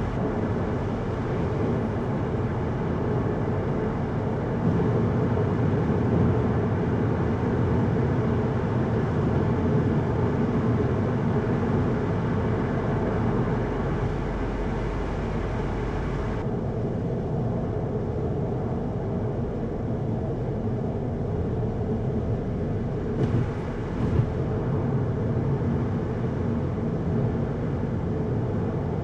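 Volkswagen Golf GTI mk7.5 driving, its 2.0-litre turbocharged four-cylinder engine running steadily under a constant wash of tyre and road noise. About halfway through the higher hiss drops away suddenly, leaving a lower, duller rumble.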